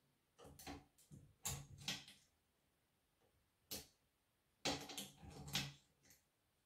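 Light clicks and knocks of a thin metal hook tool being worked in the plastic tank opening of a Husqvarna chainsaw. The sounds come in short clusters, with a busier run about two thirds of the way through.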